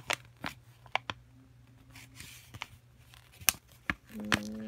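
Handling of a paper instruction manual and packaging: soft rustling with several sharp clicks and taps scattered through.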